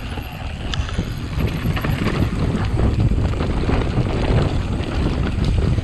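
Wind buffeting the microphone over the clatter and rattle of a mountain bike on a rough trail, with many small knocks.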